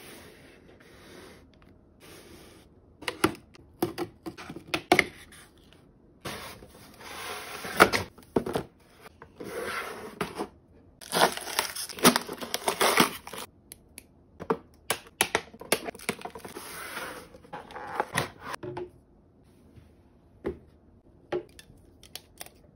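Cardboard packaging being handled and torn open by hand: irregular tearing, crinkling and scraping with sharp taps and clicks, busiest from about three seconds in until near the end, then only a few light taps.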